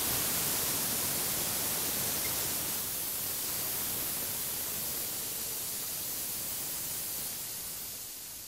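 Air hissing steadily out of a car tire as it is let down before its bead is broken on the tire changer, tapering off near the end as the pressure drops.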